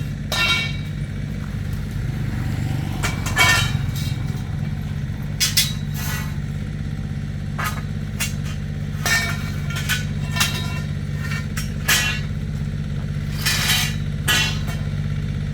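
Steel parts clanking against each other or being struck, about ten separate ringing knocks at uneven intervals, over a steady low motor hum.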